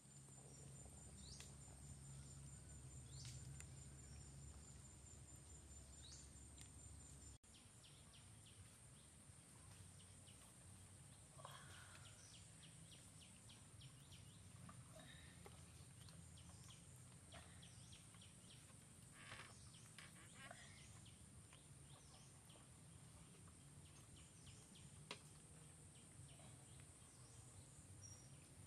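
Faint outdoor forest ambience: a steady high-pitched insect drone, with scattered short bird chirps, clicks and rustles. For the first seven seconds a low hum sits under it, then cuts off suddenly.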